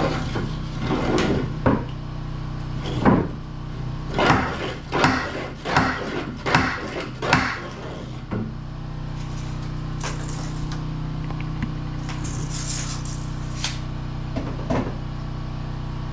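Irregular knocks and thuds on wood, about ten in the first eight seconds, then a few lighter taps, as a wooden wall piece is hammered or worked into place. A steady low hum runs underneath.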